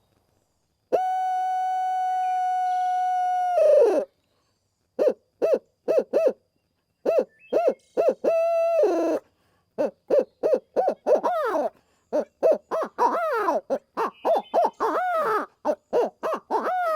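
Brute Hoot owl call blown with its barrel removed and the hands cupped around it as the sound chamber, imitating a barred owl's 'laugh'. A long held hoot falls away at its end, then comes a string of short hoots, then a fast run of hoots that rise and fall in pitch as the hands move.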